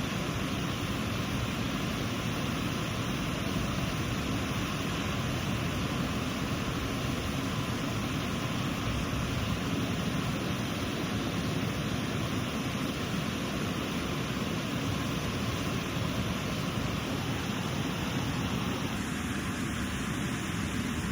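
Steady rush of the Elk River's water pouring over its waterfall, an even, unbroken roar with no other events.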